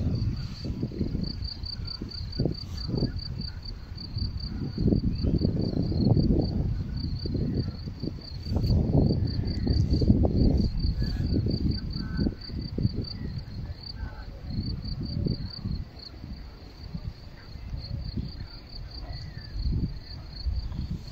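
Gusty wind rumbling on the microphone, with an insect chirping steadily in fast, even, high-pitched pulses throughout.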